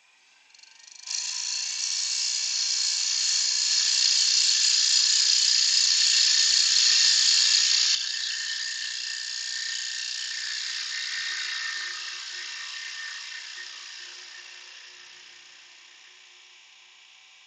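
Turning tool cutting across the face of a small wooden box lid spinning on a wood lathe: a steady hiss of the cut that starts about a second in, is loudest until about eight seconds, then eases and fades away as the cut lightens.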